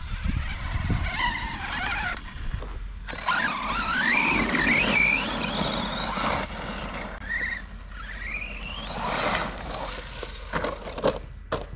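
Redcat Camo TT Pro RC trophy truck's brushless electric motor whining under throttle, its pitch climbing and falling as the truck accelerates and backs off, with short pauses between bursts. A few sharp knocks come near the end.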